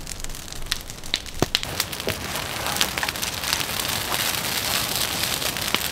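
Campfire hissing and crackling with many small sharp pops, growing busier about halfway through, as it burns down through melting snow.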